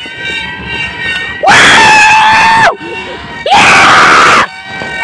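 Two loud horn blasts about a second apart, each lasting just over a second. Each swoops up in pitch at the start, then holds one tone and cuts off.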